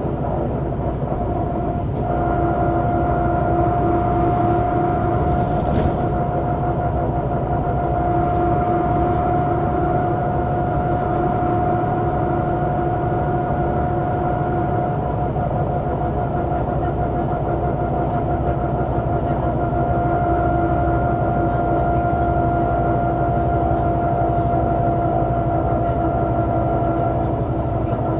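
MAN NG 312 articulated city bus running at a steady speed: an even engine and drivetrain drone, with a steady whine that sets in about two seconds in and holds.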